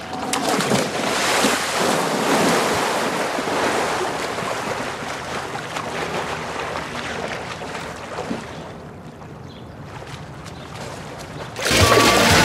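Water splashing and churning as people wade and thrash waist-deep in a lake beside a canoe, easing off for a few seconds. Music starts suddenly near the end and is louder than the splashing.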